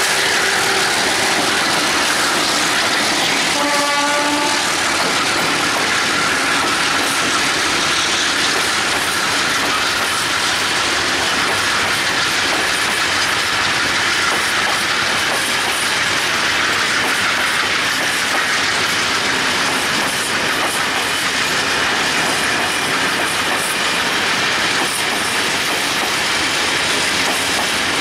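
Freight train rolling past behind MLW diesel locomotives, with the engines running as the locomotives go by and a short horn blast about four seconds in. After that comes the steady rumble and clatter of the loaded open wagons' wheels over the rails.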